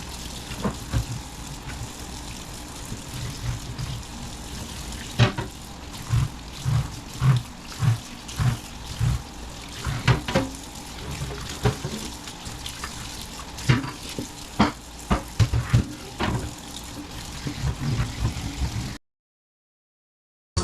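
Kitchen tap running into a sink while things are handled under it, with frequent knocks and clunks against the sink. The sound cuts off abruptly near the end.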